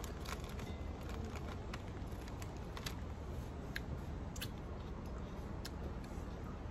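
Close-up eating sounds: irregular small clicks and crunches of chewing and of fingers picking at chicken feet and gizzard on baking paper, over a steady low hum.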